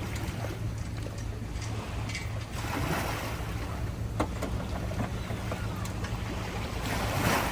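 Outboard boat motor idling steadily with a low hum, with swells of noise about three seconds in and again near the end.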